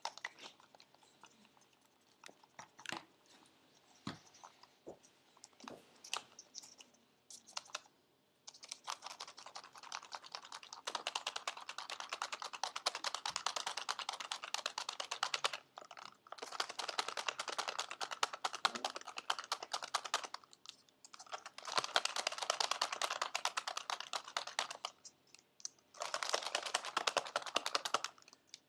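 Homemade slime being squished and worked by hand: dense, rapid crackling and clicking in long stretches of several seconds, with short pauses between, after a few scattered clicks at first.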